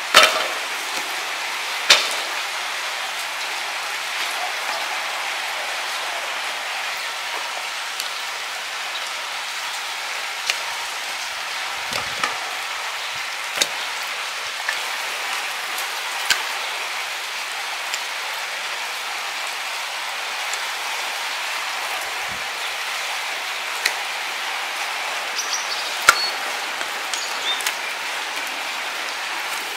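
Light clicks and soft knocks of sliced onion, tomato halves and raw meat pieces being laid by hand into a dry granite-coated pan, over a steady even hiss like light rain. The sharpest knocks come right at the start and about two seconds in.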